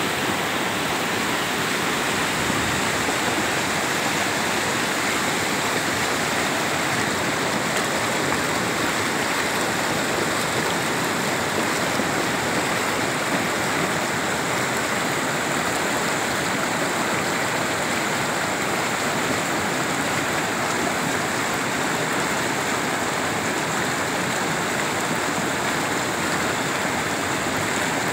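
Muddy floodwater rushing over and around boulders in a rocky riverbed, a steady unbroken noise of churning water. The river is in flood from very heavy rain.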